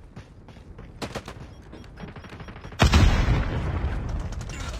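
Video game gunfire in a Call of Duty-style shooter: a string of sharp, separate shots, then the firing turns suddenly much louder and denser about three seconds in.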